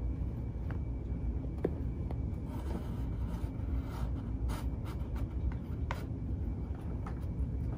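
Cats' claws scratching and tapping on a cardboard cat castle as they bat at a ribbon wand toy, with a few scattered light clicks over a steady low rumble.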